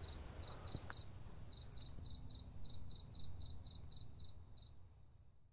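A cricket chirping steadily in the evening, about four high chirps a second, over a faint low rumble. The sound fades out near the end.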